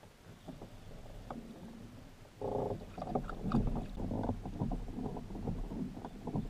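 Faint handling noise at first; a little over two seconds in, the sound jumps louder to irregular water lapping and slapping against a kayak's hull.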